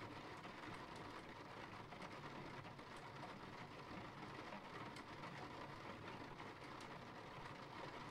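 Faint, steady rain: an even hiss with a few scattered drip ticks.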